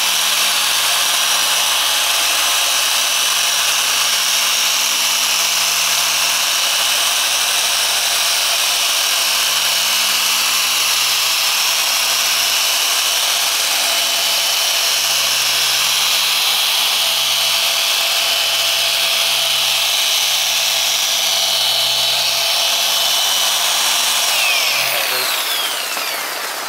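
SPTA 15 mm dual-action polisher running steadily with a foam pad on car paint: a steady high-pitched motor whine. Near the end it is switched off and winds down, the whine falling in pitch.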